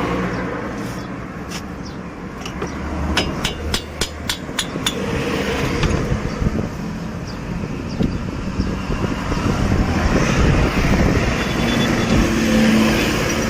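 Steady street and traffic noise, with a quick run of sharp metallic clicks and taps from about one to five seconds in, as loose brake caliper parts are handled.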